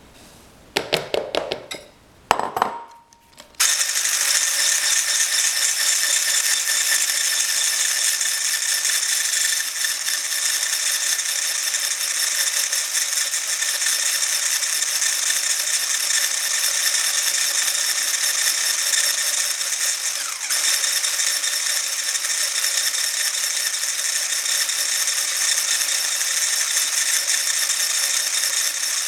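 A few clinks against a bowl, then about three and a half seconds in a small electric whisk starts beating the cake batter and runs steadily with a high motor whine and a fast rattle.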